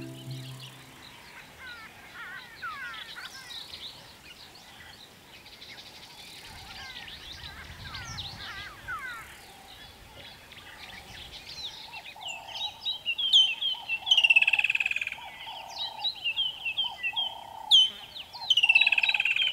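A chorus of wild birds calling in the bush. There is fast, thin twittering at first, then louder, sharp, sweeping calls from about twelve seconds in, with a lower note repeating roughly once a second.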